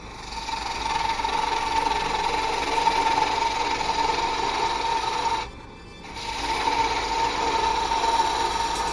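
A turning tool cutting a spinning wooden spindle on a wood lathe: a steady hissing cut with a ringing tone. The cut breaks off for about half a second past the middle, then picks up again.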